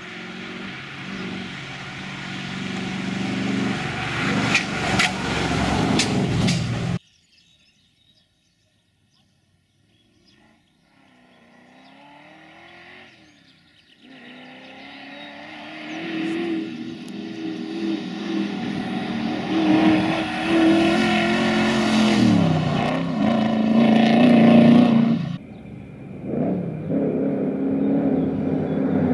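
Triumph TR7 V8 rally car's V8 engine driven hard as it approaches, its note rising through the gears. The sound cuts out abruptly about seven seconds in and returns a few seconds later, faint then growing louder, with the pitch climbing and then dropping sharply as the driver lifts off, and cuts again shortly before the end.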